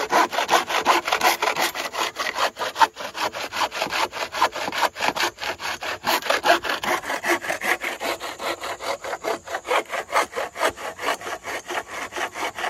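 Bow saw cutting across a wooden board by hand, in fast, even back-and-forth strokes of about four a second.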